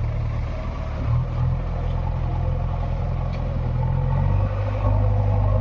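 Heavy diesel engine running at low revs, with a steady low note. The note shifts and grows a little louder about four and a half seconds in.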